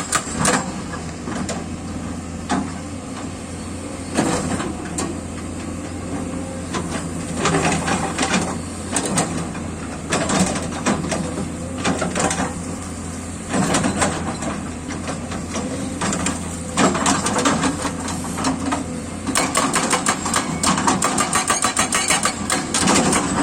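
Kato hydraulic excavator's diesel engine running steadily under load while it works large rocks, with irregular knocks and clatters of stone and steel. Near the end a fast, even knocking sets in.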